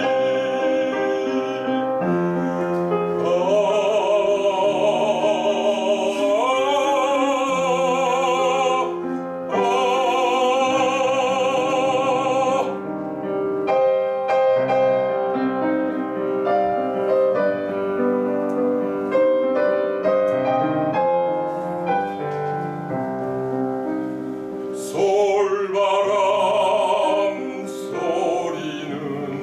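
Baritone singing a Korean art song in operatic style with vibrato, accompanied by piano. The voice drops out for a piano-only passage in the middle and comes back near the end.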